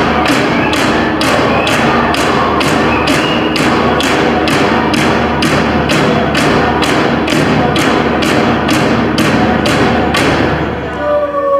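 Iñupiaq drum song: frame drums beaten together in a steady, fast beat of about two and a half strokes a second, with voices singing over them. The drumming stops near the end.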